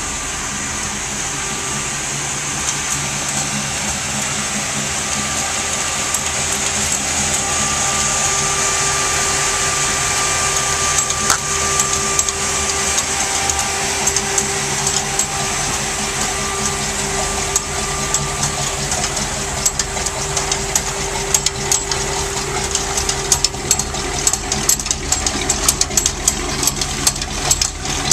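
Diamond T flatbed truck's engine idling steadily, with a constant low hum. Many short clicks join in over the last several seconds.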